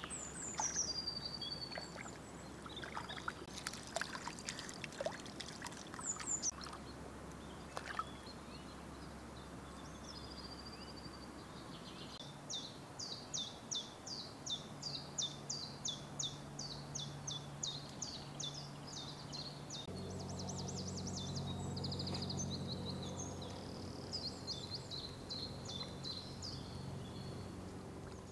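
A dog wading in shallow river water, with scattered light splashes and drips in the first several seconds, while birds call throughout and one repeats a quick run of high calls in the second half. A low steady hum joins about two-thirds of the way in.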